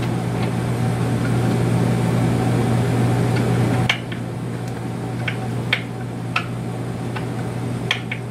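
A steady low hum, like a fan running, that drops off suddenly about four seconds in. Scattered light clicks and taps follow as hands work the screws and nuts that fasten a Taig micro lathe to its mounting board.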